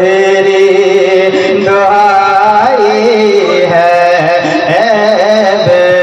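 Live naat music: a voice singing long, wavering melodic lines with no clear words, over a steady low drone.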